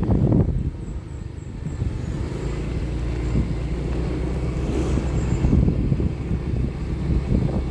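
A road vehicle on the move: a steady low rumble of engine and road noise.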